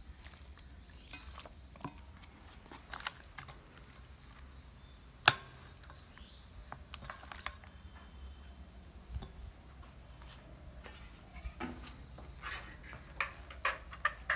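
Raw chicken pieces being handled in a stainless steel bowl: soft wet squelches with scattered clicks and knocks. The loudest is a single sharp knock about five seconds in, and the clicks come more often near the end.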